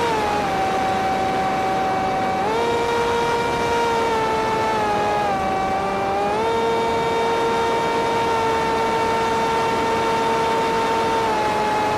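Electric motor and propeller of a ZOHD Dart XL RC plane in flight, heard from the aircraft itself: a steady whine whose pitch drops and rises several times as the throttle changes, over a steady hiss.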